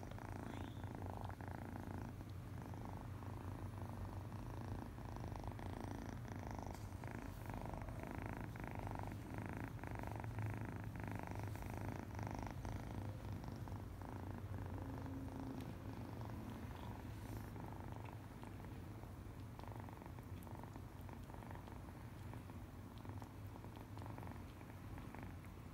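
Kitten purring steadily while being petted, a low continuous rumble.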